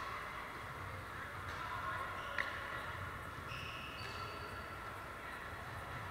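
Reverberant gym hubbub of distant voices, with one sharp pickleball pop about two and a half seconds in and short high sneaker squeaks on the wooden court floor a second or so later.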